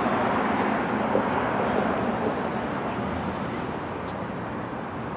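Steady traffic noise from passing road vehicles, easing off gradually toward the end.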